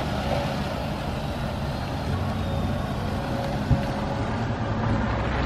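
Chrysler Town & Country minivan's V6 engine idling steadily, with one short knock partway through.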